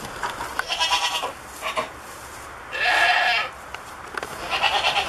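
Goat bleating three times: a shorter broken call about a second in, a long loud bleat about three seconds in, and another near the end.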